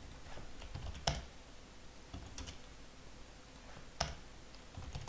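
Typing on a computer keyboard: a run of soft, scattered keystrokes, with two sharper, louder key hits about a second in and about four seconds in.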